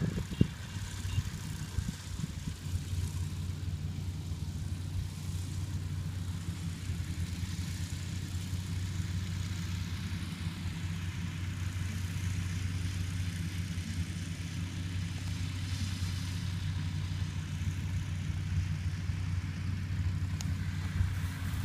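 A rice combine harvester's engine running steadily, a low, even hum.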